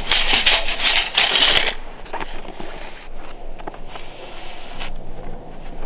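Scraping and rustling of work gloves and a metal straightedge being handled over a white ceiling panel. Loudest for about the first second and a half, then fainter, with a few small clicks.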